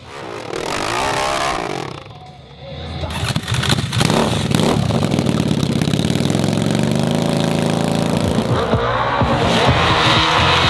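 A small dirt bike engine starts up about three seconds in and keeps running loudly. Near the end the sound shifts to a dirt bike riding on the track.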